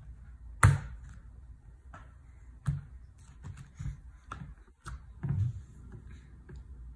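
Scattered knocks and thumps from a toddler handling a plastic tricycle and clambering onto a leather couch. The loudest knock is about half a second in, a second one near three seconds, and a duller bump a little after five seconds.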